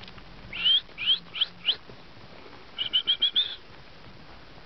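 Four short, quickly rising whistled notes, followed about a second later by a quick run of five shorter whistles on one pitch.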